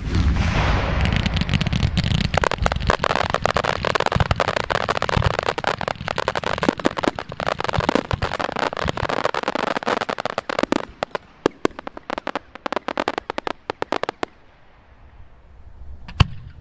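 Aerial fireworks going off: a dense run of bursts and many sharp crackling pops over a low rumble. The pops thin out after about 11 s and die away, then a single bang comes about 16 s in.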